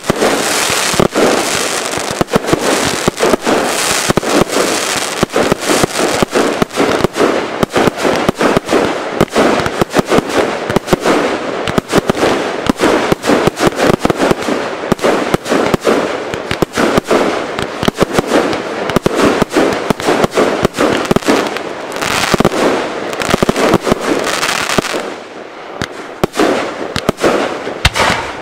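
Aerial fireworks bursting in rapid succession: a dense run of bangs and crackles, many a second, with a brief lull near the end before more bangs.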